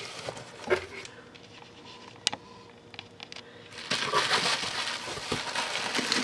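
Bubble wrap crinkling as hands handle it and lift it out of a cardboard box, with a few sharp clicks. The crinkling turns louder and denser about four seconds in.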